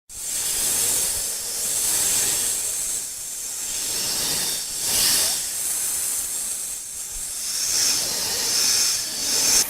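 Snake hissing: a long, breathy hiss that starts abruptly and swells and eases off several times, loudest about five seconds in and again just before the end.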